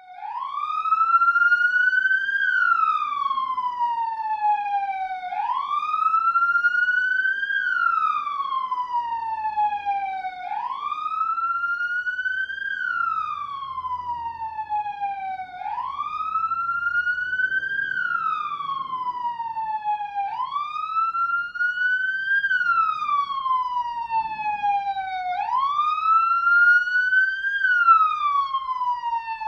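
Police siren sounding a steady wail: the pitch climbs quickly and then falls slowly, one rise and fall about every five seconds.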